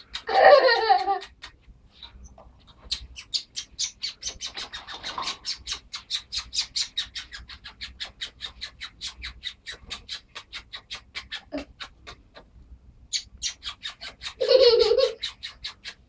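Canary giving a quick run of short, sharp chirps, about five a second. Two louder, lower squawks come, one just after the start and one near the end.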